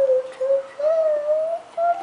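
A toddler's voice holding a long hummed, hooting tone that rises slowly in pitch, broken into a few stretches.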